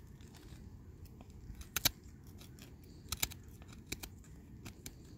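Knife blade shaving thin curls off a wooden spoon blank: a few short, crisp cuts, the loudest a close pair about two seconds in, with more about three and four seconds in, over a low steady background rumble.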